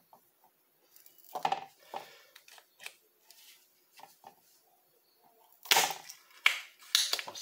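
A spring-loaded desoldering pump (solder sucker) sucking molten solder off a motherboard capacitor's joint, with a sharp snap about a second and a half in. Several louder sharp clicks and knocks follow near the end.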